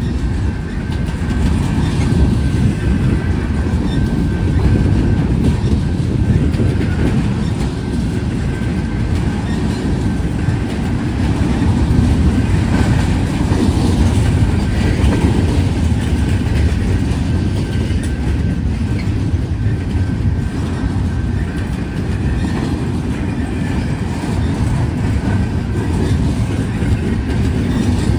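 BNSF intermodal freight train rolling past: a steady, loud rumble of steel wheels on the rails, with a faint high thin tone that comes and goes.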